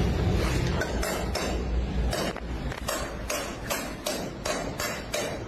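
A hammer striking over and over in a quick, regular rhythm, about three blows a second.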